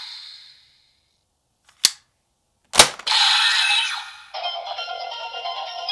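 Two sharp plastic clicks as a Wonder Ride Book is set into the DX Seiken Swordriver toy belt, the louder second one followed at once by a short burst of electronic sound effect. About four seconds in, the belt starts its looping electronic standby music.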